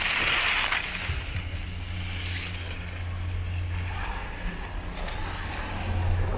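Wind rushing over the microphone of a camera carried by a downhill skier, a steady low rumble with a hiss of skis sliding on packed snow, the hiss briefly louder at the start.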